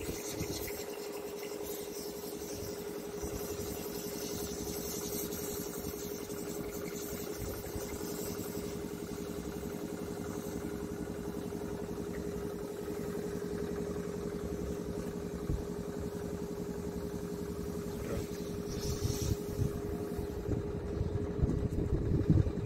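An engine idling steadily at an even pitch. A few louder knocks near the end.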